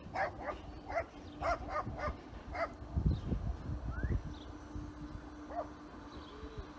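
A dog barks repeatedly, several quick barks in the first few seconds, then stops. A faint steady hum continues after that, as the train approaches out of the tunnel.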